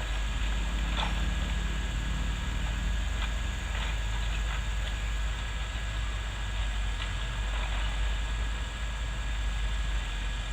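Backhoe's diesel engine running steadily with a thin steady whine, and a few short sharp clicks or cracks scattered through, as it works clearing brush.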